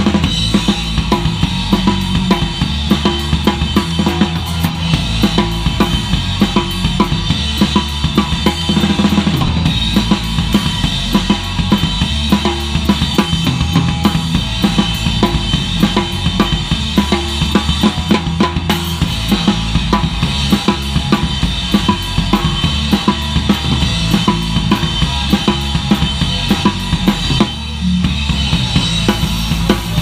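Live horror punk band playing, the drum kit to the fore: a steady fast beat of bass drum and snare with crashing Zildjian cymbals over a PDP kit, with PRS electric guitar and Fender Precision bass guitar underneath.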